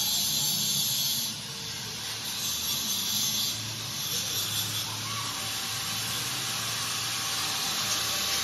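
A steady hiss with a low hum beneath it.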